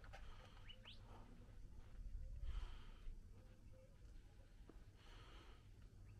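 Near silence: faint hiss and low rumble, with a few faint, short rising chirps about a second in and soft breathy swells of noise.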